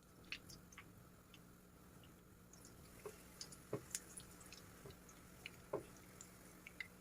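Faint kitchen handling sounds: scattered small clicks and taps with a few soft wet squishes, over a steady low hum.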